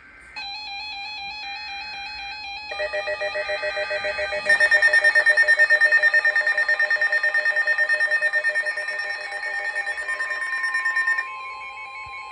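Weather radio alert alarms: layered electronic beeping and warbling tones that build up in steps and pulse rapidly, then drop back about eleven seconds in. A steady tone near 1 kHz, the NOAA Weather Radio 1050 Hz warning tone, comes in near the end.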